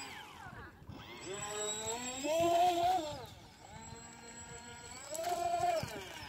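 Small radio-controlled speedboat's motor whining as it is throttled up about a second in, rising in pitch, holding briefly, then falling away; a second shorter burst of throttle rises and drops near the end.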